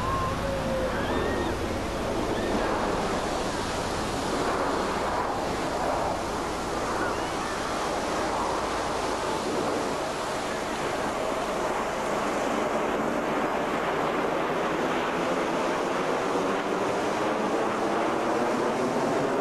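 Jet engines of a military jet formation flying overhead: a steady rushing noise that slowly sweeps up and down in pitch.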